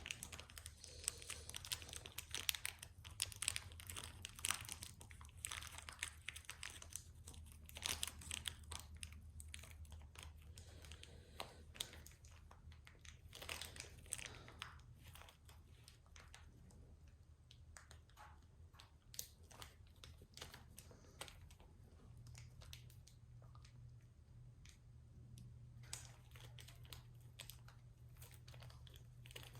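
Faint crinkling and tearing of a small pack of replacement tires being picked open, in scattered small clicks and rustles.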